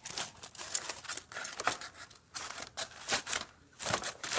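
Knife cutting through a rack of smoked pork baby back ribs on aluminium foil: a quick run of irregular scraping strokes.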